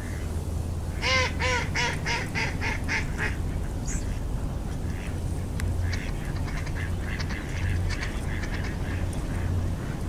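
A duck quacking in a run of about eight quacks that come faster and fainter, followed by quieter scattered calling from the flock on the water.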